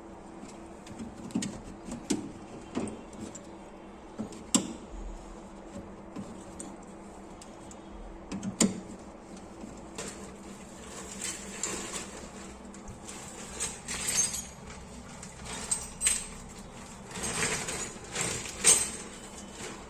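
Irregular clicks, knocks and small metallic rattles of parts and tools being handled, sparse at first and coming thick and fast in the second half, over a faint steady hum.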